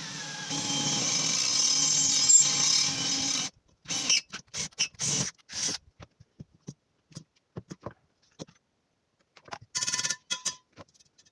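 Electric drill running steadily for about three seconds and then stopping suddenly, followed by a series of short knocks and clatters.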